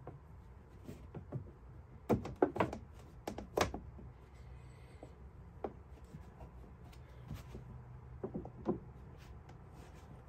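Lifeproof vinyl flooring planks being shifted and pressed into place by gloved hands: a cluster of light knocks and clicks about two to four seconds in and a few more around eight seconds in, over a steady low hum.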